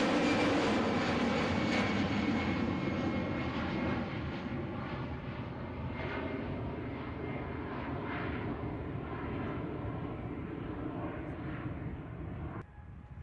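Airliner engines, loud at first and then fading as the aircraft moves away, the tones sliding slightly lower and the hiss dulling. The sound drops off abruptly near the end.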